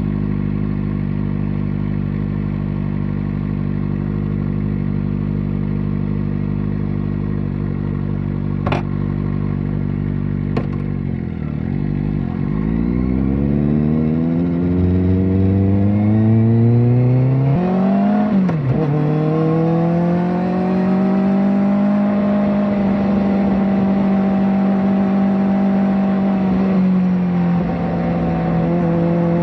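Kawasaki ZX-4RR's 399 cc inline-four running through a slip-on exhaust. It holds a steady note for about ten seconds, with two sharp clicks near the end of that stretch, then the revs climb. A quick dip about two-thirds in is a gear change, after which the revs climb again and settle.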